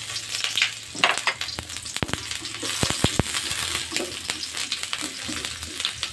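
Sliced shallots and garlic sizzling in hot oil in a wok while a spatula stirs them, frying until fragrant. A few sharp clicks of the spatula knocking against the wok come about one, two and three seconds in.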